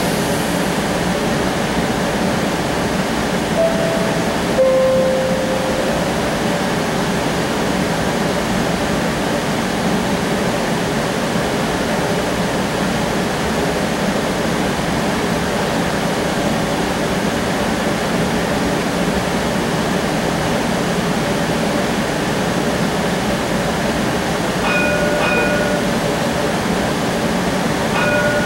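Interior of a modern electric streetcar: a steady rumble and hiss of the car. Short electronic chime tones sound about four seconds in and again twice near the end.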